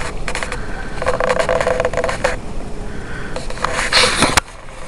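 Footsteps crunching and scraping through deep, fresh snow in several bursts, stopping suddenly near the end.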